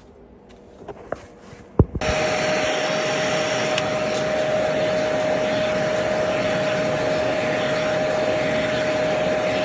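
A few handling clicks, then about two seconds in a Kidkin vacuum grooming tool, a small shop-vac-style suction unit, switches on abruptly and runs steadily with a constant whine over its rushing air.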